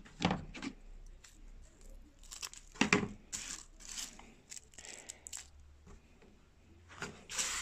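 Scissors snipping and crinkling bits of foil tied onto a fish hook, trimming them to length: a few separate cuts and rustles, the loudest about three seconds in and near the end.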